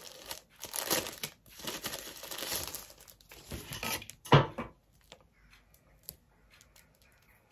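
Earphone packaging wrap being crinkled and pulled open by hand for about four seconds, ending in one sharp loud thump; after that only faint small clicks as the coiled earphone cable is handled.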